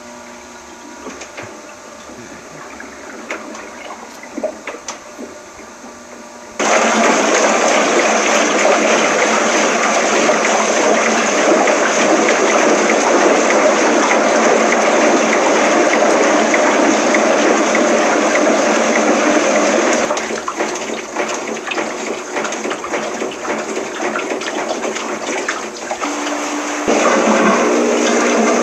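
Washing machine with water rushing: a quiet hum at first, then a sudden loud gush of water about a quarter of the way in that runs on and eases somewhat later. Near the end a steady machine hum joins it.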